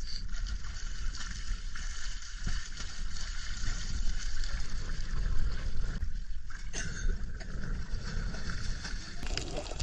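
Sea water rushing and sloshing over a steady low rumble, with gurgling.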